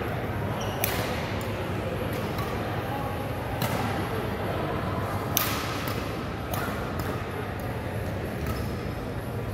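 A few sharp, irregularly spaced smacks of badminton rackets striking shuttlecocks, the loudest about five seconds in, over a steady murmur of voices in a large sports hall.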